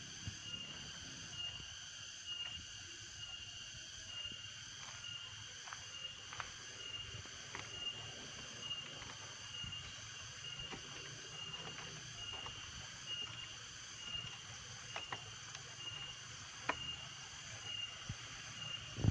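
Insects chirping in a steady, high, evenly pulsing drone, about two pulses a second, with a few scattered soft clicks.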